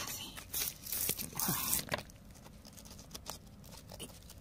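A hiss for about the first two seconds, then faint scattered crunches and clicks of fingers handling a crystal cluster in gritty rock.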